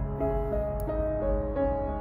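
Background music: a melody of held notes that change pitch step by step.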